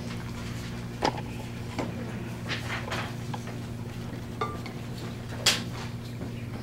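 A steady low hum with a scattering of light clicks and clinks from small hard objects being handled, about six in all, the loudest about five and a half seconds in.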